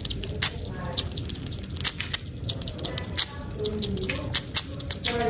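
A young squirrel chewing and gnawing a piece of food held in its paws: irregular sharp crunching clicks, a few per second, close to the microphone.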